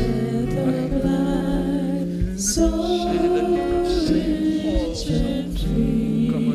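Live gospel worship music: a woman singing long held notes with a keyboard and band accompanying.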